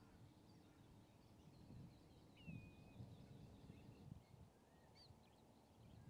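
Very quiet mudflat ambience: a low, uneven rumble with a few faint, thin whistled bird calls. One call drops and then holds its pitch about halfway through, and a short high chirp comes near the end.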